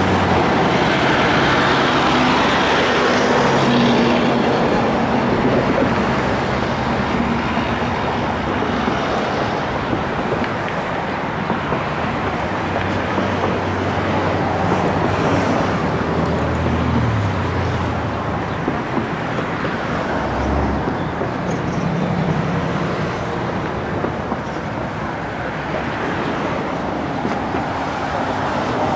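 Steady din of running motor engines, a low hum that shifts in pitch now and then, over constant outdoor noise.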